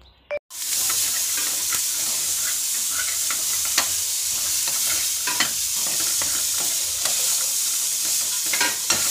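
Soaked chickpeas sizzling in hot oil in a metal pan as they are given a tadka, starting suddenly about half a second in and going on steadily. A spoon stirring them scrapes and clicks against the pan now and then.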